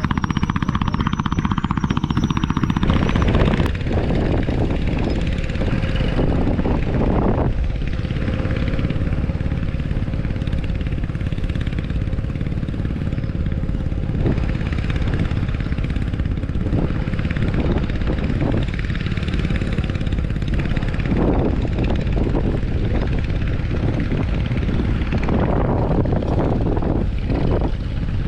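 Strong wind buffeting the microphone in a steady, heavy rumble.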